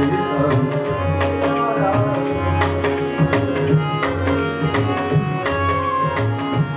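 Hindustani classical ensemble playing: tabla strokes in a steady rhythm with deep booming bass-drum notes, over held harmonium chords and bansuri flute.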